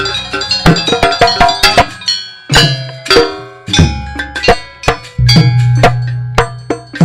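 Live gamelan music for a barong dance: sharp, irregular strikes on bronze percussion and drum, with deep gong tones swelling and ringing beneath them several times.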